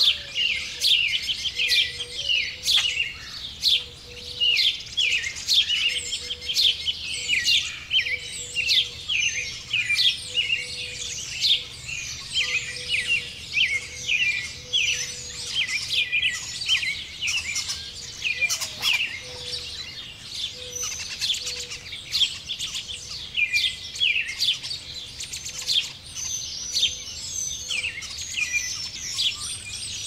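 Spring dawn chorus of many songbirds: dense, overlapping high chirps, trills and songs that never let up. A faint low note repeats about once a second beneath them.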